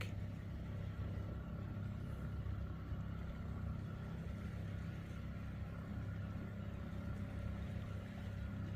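Steady low hum of a motor vehicle engine running, even throughout, with faint steady tones above it.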